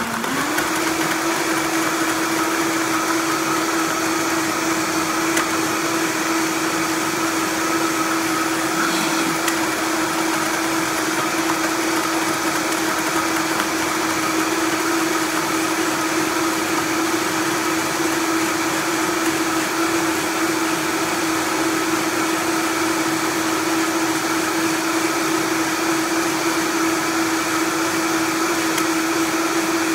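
Vitamix blender motor running at high speed, blending juice with ice; its whine steps up in pitch right at the start and then holds steady.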